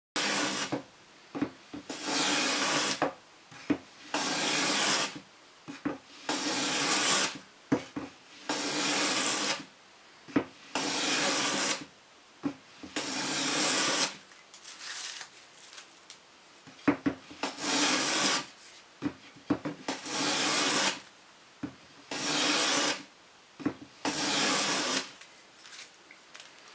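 Homemade hard maple rabbet plane cutting a rabbet along a board: about ten rasping strokes of roughly a second each, with light knocks as the plane is lifted and set back between passes.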